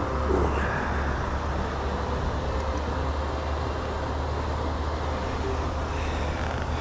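Fast-flowing shallow river water rushing over a stony bed: a steady, even rush with a low rumble.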